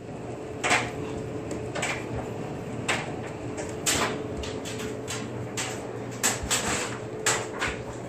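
Slow footsteps on a tile floor, about one a second, over a steady electrical hum. Near the end they give way to a few quicker, irregular scuffs and rustles.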